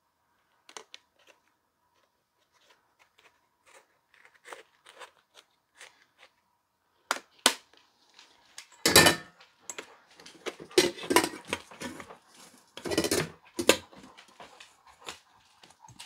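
Handling of a stainless steel pet water fountain's parts: scattered light clicks and taps at first, then from about halfway louder clatters and knocks of the metal lid and parts against the steel bowl, the loudest twice.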